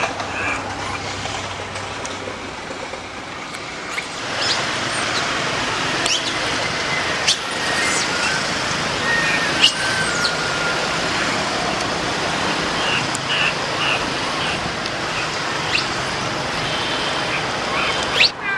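Steady outdoor background noise, with a few faint short high-pitched calls and a couple of sharp clicks.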